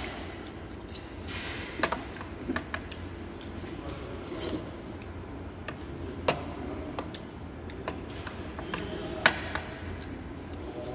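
Metal chopsticks and a metal spoon tapping and clinking against a compartment meal tray and bowl while eating, a few sharp clicks at irregular intervals over a steady low room hum.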